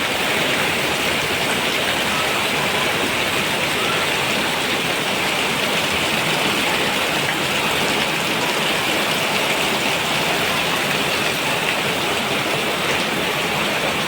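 Steady rain falling, an even, unbroken hiss with no pauses or single impacts.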